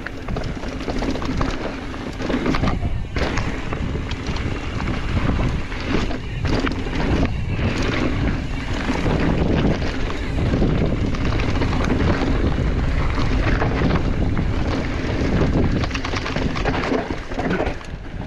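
Wind buffeting the microphone of a mountain bike in motion, over a steady rumble of tyres on dirt trail, with scattered knocks and rattles from the bike over rough ground.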